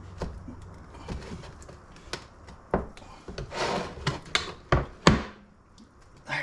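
A new 3.00-10 mobility scooter tire's bead being worked over the wheel rim with a tire tool: a run of sharp knocks and clacks with rubbing and scraping between them, the loudest knocks in the second half.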